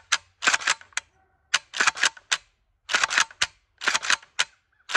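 The action of a 12-gauge AK-pattern shotgun fitted with a binary disconnector, dry-cycled with the receiver open: the charging handle is racked and the hammer snaps on the trigger pull and again on the release. It makes about four quick clusters of sharp metallic clacks, roughly one a second.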